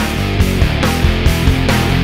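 Rock music with guitar and a steady drum beat, about two and a half beats a second.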